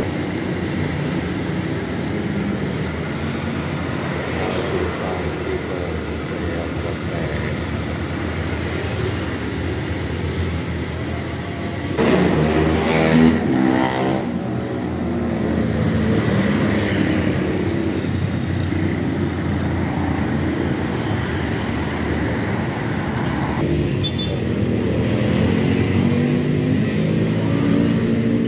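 Steady roar of a gas wok burner under a wok of chicken deep-frying, with the oil sizzling. About twelve seconds in, a passing vehicle's engine is louder for a couple of seconds over it.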